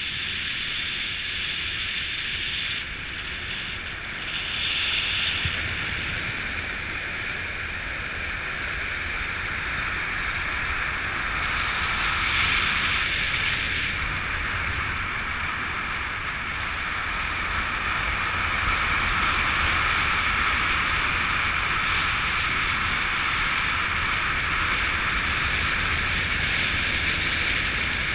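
Wind rushing steadily over the camera microphone during a descent under an open parachute canopy.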